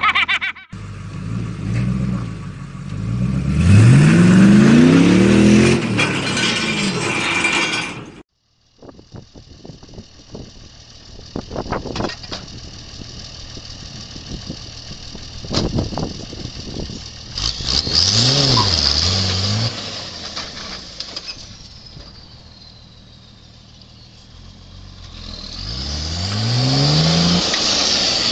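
Vehicle engines revving in two back-to-back clips. First a van's engine revs hard with a rising pitch, then the sound cuts out briefly. After that a flatbed tow truck's engine revs up twice, with scattered knocks and scrapes in between.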